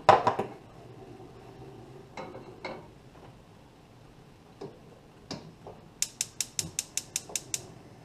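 A metal pan set down on a gas stove's grate with a clatter, a few light knocks, then the burner's spark igniter clicking rapidly, about ten clicks in under two seconds.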